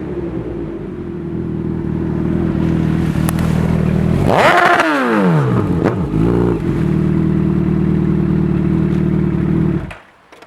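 Honda CB1000R inline-four engine running through an IXIL Hyperlow slip-on exhaust with a decat pipe. It idles steadily, is revved once sharply about four seconds in and falls back, gets a short blip of the throttle a second or so later, settles back to idle and is switched off near the end.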